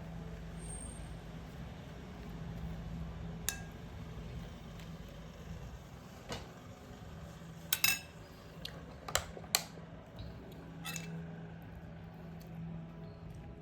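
Dishes and cutlery clinking: scattered sharp clinks and knocks, the loudest a quick pair about halfway through and two more a second later, over a steady low hum.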